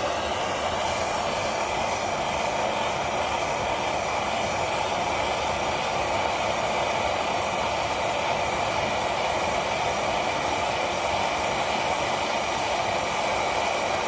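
Jeweller's gas soldering torch burning with a steady hiss while heating the metal joint for soldering.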